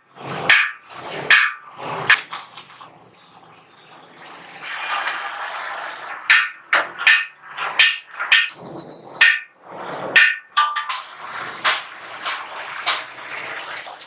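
Irregular sharp knocks and clinks of hand tools on a sheet-metal gas water heater casing and its fittings, with a brief metallic ring about nine seconds in.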